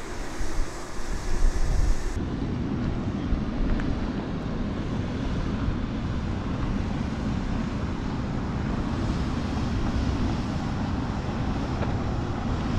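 Wind buffeting the camera microphone outdoors, a steady rumbling hiss with no distinct machine tone. About two seconds in the sound changes abruptly, with less hiss and more low rumble.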